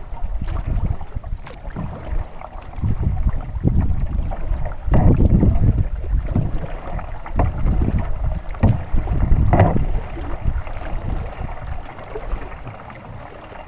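Double-bladed kayak paddle dipping into river water stroke after stroke, a splash and trickle of drips every second or so, over a low wind rumble on the microphone.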